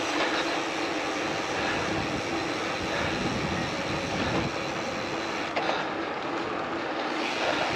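Gravel bike rolling along a gravel road: steady tyre and rattle noise, with a heavier low rumble in the middle.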